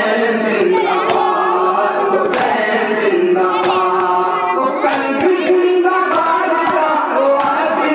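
A group of men chanting a nauha, a Shia lament, together in unison, with sharp chest-beating (matam) strokes falling about every second and a bit.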